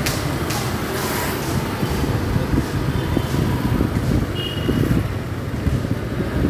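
Motorcycle engine running with steady road and traffic noise while riding slowly through a busy city street. Two brief high beeps sound near the middle.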